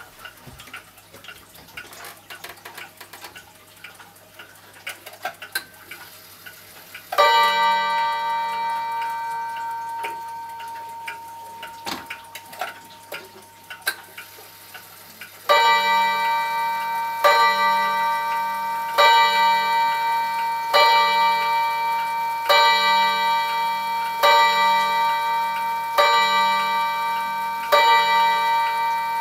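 Seiko 30-day pendulum wall clock ticking, then its chime strikes once with a long ring about a quarter of the way through. About halfway through it starts striking the hour: slow, evenly spaced ringing strikes about 1.7 seconds apart, eight of them here, as the hands come to ten o'clock.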